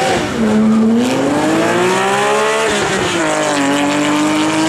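Sports car engine accelerating hard from a drag-race start, its note rising in pitch through the gears. It drops at a gear shift just after the start and again about 2.7 s in, then climbs again.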